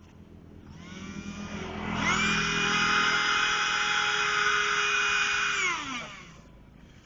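Battery-powered electric motor of a small radio-controlled boat whining as it runs: it spins up about a second in, holds a steady whine, and winds down about six seconds in.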